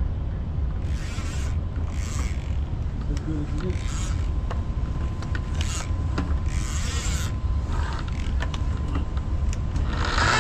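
Makita rotary polisher running with its pad pressed to the painted deckhead of a yacht, a steady motor hum with a faint whine and intermittent swishing as the pad rubs over the paint. Just before the end a louder sound with several steady tones comes in.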